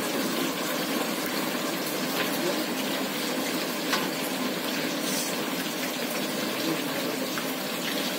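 Chicken pieces deep-frying in hot oil in a large iron kadai: a steady, dense sizzling and bubbling.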